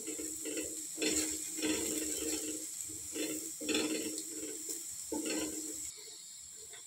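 Wooden spatula stirring and scraping fried potato strips around a nonstick frying pan in irregular strokes, mixing in turmeric, with light sizzling underneath. The stirring stops about six seconds in.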